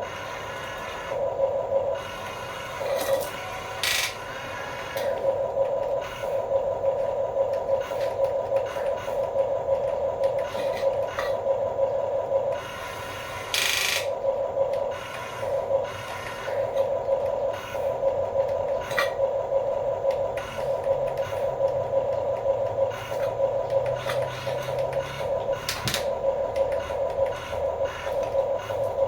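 The small electric motors and gearboxes of a radio-controlled toy construction vehicle whine in runs that stop and start every second or two. Scraping and clicks sound on top, loudest around four and fourteen seconds in.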